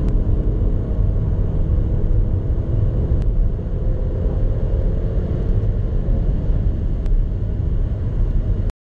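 Inside the cabin of a 2016 Mercedes-Benz CLA 250 Sport with its 2.0-litre turbocharged four-cylinder at full-throttle acceleration at high speed: a steady, heavy low rumble of engine, road and wind, changing up from fifth to sixth gear partway through. Two short clicks come about three and seven seconds in, and the sound cuts off abruptly near the end.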